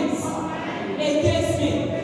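Several voices singing together, choir-like, with some notes held.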